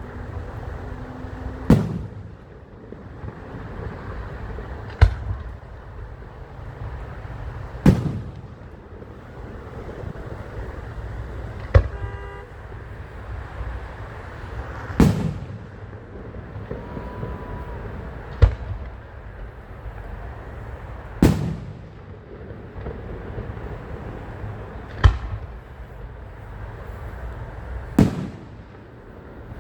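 Fireworks exploding overhead: about nine sharp bangs, one every three to four seconds, over a steady low rumble.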